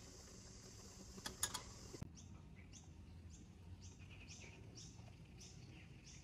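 A small bird chirping over and over in a garden: short, high chirps that fall in pitch, about two a second, starting about two seconds in. A few sharp clicks come just before the chirping begins.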